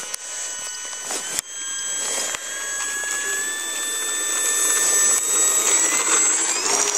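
Durafly T-28 Trojan model plane's electric motor and propeller whining on its takeoff roll, slowly rising in pitch and loudness, with a quicker rise near the end as the throttle comes up. A single sharp knock about a second and a half in.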